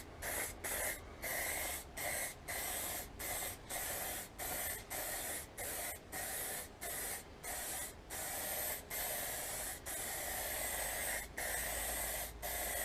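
Aerosol spray can of clear lacquer hissing in short bursts, about two a second, with longer sprays of a second or more in the last few seconds.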